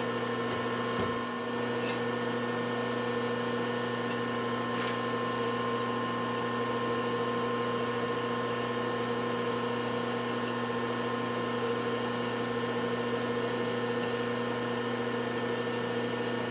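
Steady machine hum with several even, unchanging tones, the background of a machine shop, with a few faint clicks. The hand-turned tap cutting threads makes no clear sound of its own.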